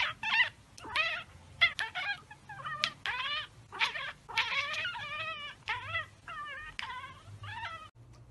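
Tabby cat chattering: a quick string of short warbling chirps, about two a second, breaking off suddenly near the end. It is the chatter cats make when they spot a bird or insect they cannot get to.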